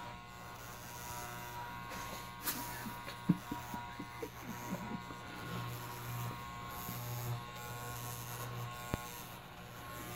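Electric hair clippers buzzing steadily while they shave hair from a sleeping person's head, with a few short taps from handling; the sharpest comes about three seconds in.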